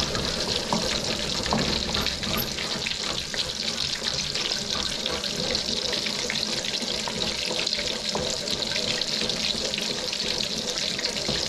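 Breaded schnitzel cutlet frying in a wok of hot oil: a steady, dense sizzle with fine crackling as the wok is rocked to keep the oil washing over the cutlet. This is the stage where the crust should start to puff away from the meat.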